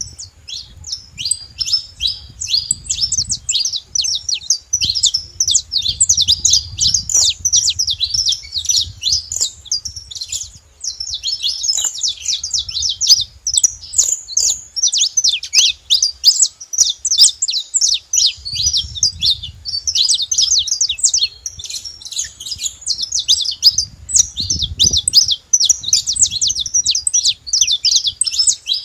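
Saffron finch singing: a long, near-unbroken run of rapid, high chirping notes, with a short pause about eleven seconds in.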